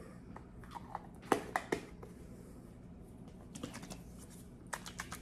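A bottle of green chile sauce being handled and shaken to mix it, because only its thin liquid was pouring out: a few sharp clicks about a second in, then short runs of quick ticks near the end.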